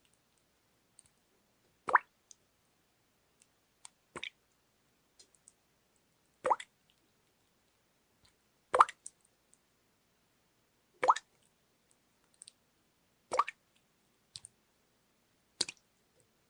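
Water dripping at a steady pace: seven clear drops, one about every two and a quarter seconds, with fainter small ticks between them.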